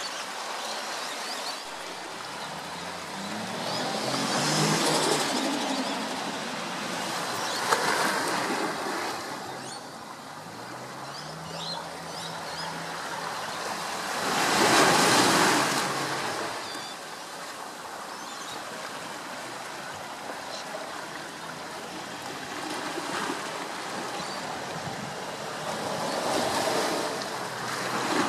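Rushing outdoor noise that swells and fades four times, with a faint low motor hum that rises in pitch about midway and a single click near 8 s.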